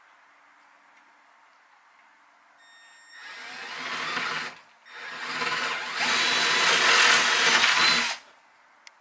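A Milwaukee power drill with a metal-cutting bit drilling location holes into wood: a first short run of about a second and a half that builds up, then after a brief pause a longer, louder run that stops abruptly, with two faint clicks near the end.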